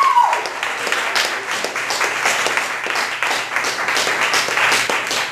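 Audience applauding, many hands clapping at once at a fairly steady level.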